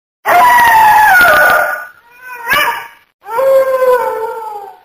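Dog howling: two long calls that sag in pitch, with a short call rising and falling between them.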